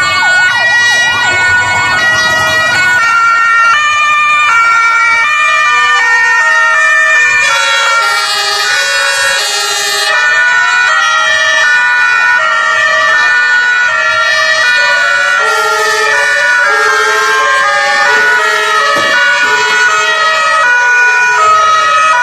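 Several German two-tone emergency-vehicle sirens (Martinshorn) sounding at once, their alternating high-low tones overlapping out of step, with a rising and falling wailing siren among them now and then.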